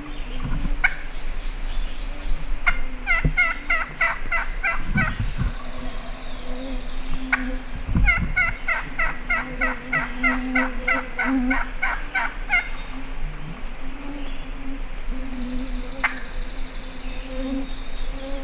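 Turkey yelping: two long series of evenly spaced yelps, about three a second, with a few single notes between, over a steady low hum.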